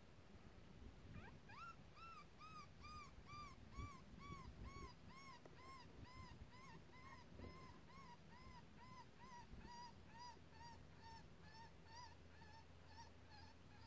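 Predator call playing a long, evenly timed run of short, high, arched whining notes, about two a second. It opens with one rising squeal and sags slowly in pitch as it goes on. Faint.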